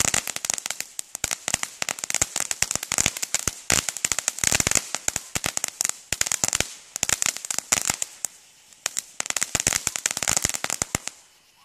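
Firehawk Go Bananas 200-gram firework fountain spraying: dense, rapid crackling over a fizzing hiss, coming in surges, easing off briefly just after eight seconds in, then flaring again and stopping about eleven seconds in as the fountain burns out.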